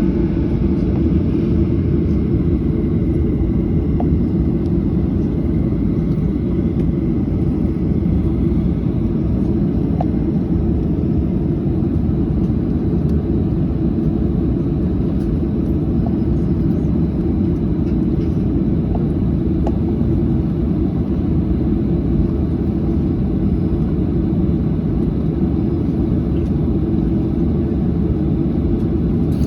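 Steady low rumble inside an airliner cabin as the plane taxis, with its engines running and no change in level.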